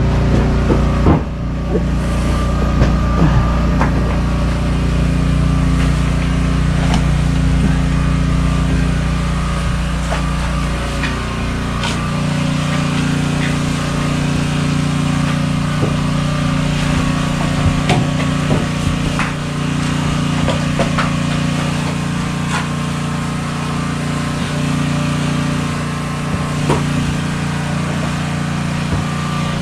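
An engine runs steadily in the background, its low drone shifting about twelve seconds in, under scattered knocks and clatter of wooden floorboards and tools being handled.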